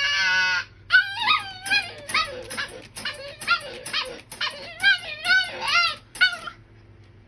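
A dog giving a short high howl, then a quick run of high yips and whines, each rising and falling in pitch, about two or three a second, stopping about six and a half seconds in.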